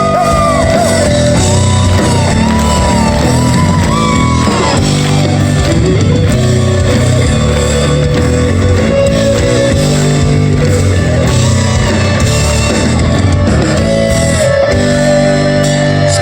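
Live rock band playing a song's instrumental intro, loud and steady. An electric guitar plays a lead melody with bent notes in the first few seconds.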